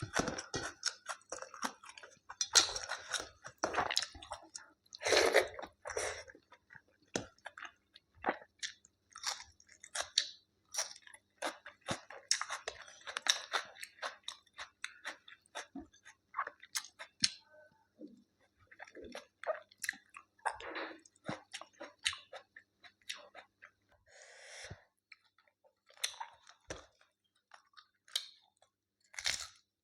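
A person eating close to the microphone: irregular chewing with many short mouth clicks and bites.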